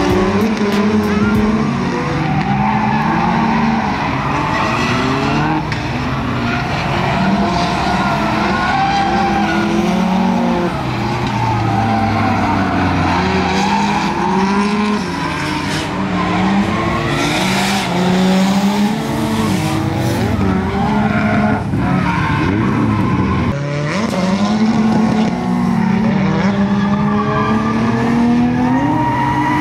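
Drift car on track, its engine revving up and down again and again with its tyres squealing through a drift run.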